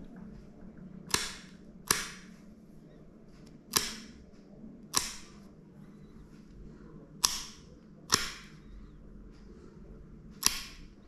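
Plier-style dog nail clippers cutting through a dog's nails: seven sharp clicks, each a second or two apart.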